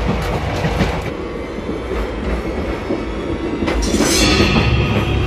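Moving passenger train heard from inside the coach: a steady rumble of the running gear with sharp clacks of the wheels over rail joints, and a high hiss that sweeps down in pitch about four seconds in.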